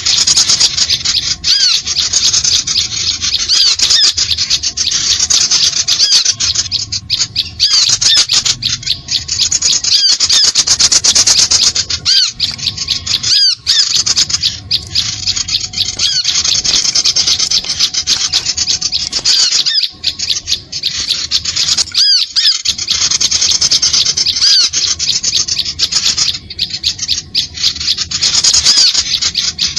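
Bird-lure recording of many small birds chattering and calling at once, a dense, unbroken stream of quick high arched notes, dipping briefly a few times.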